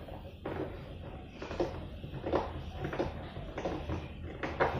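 Scattered light knocks and rattles of a plastic ride-on toy car's body being handled while parts are fitted underneath it, a sharper knock near the end.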